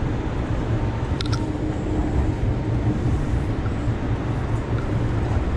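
Light-rail car of the LA Metro E Line running on the track, heard from inside the cabin as a steady low rumble, with a brief click about a second in.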